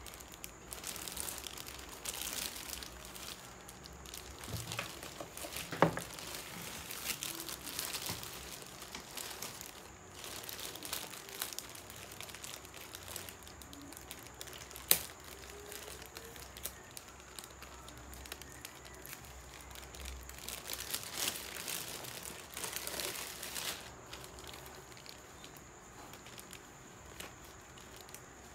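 Clear plastic wrapping crinkling and rustling in spells as hands handle and open it, with two sharp taps along the way.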